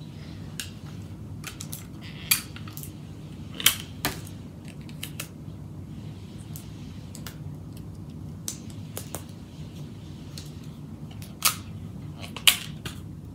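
Irregular light clicks and taps of small craft pieces being handled and set down on a desk, with a few sharper knocks among them, over a steady low hum.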